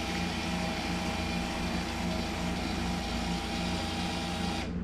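A pair of WindyNation electric linear actuators running steadily with a motor hum as they lower a ceiling-mounted projection screen frame; the motors stop just before the end.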